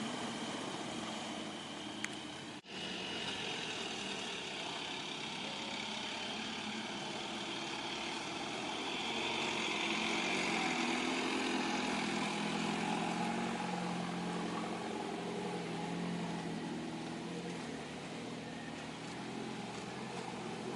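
Off-road 4x4 vehicle engine running, steady with a swell in level partway through, and a brief dropout about two and a half seconds in.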